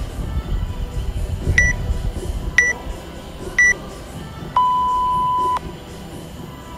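WODProof interval timer counting down: three short high beeps a second apart, then one long, lower beep lasting about a second that marks the start of the next minute's round.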